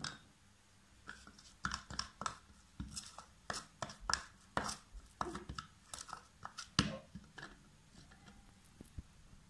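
A spoon scraping and clicking against a glass bowl as it stirs a thick paste of gram flour and milk, in irregular strokes. The sharpest click comes near the end of the stirring, and the strokes then grow sparse and faint.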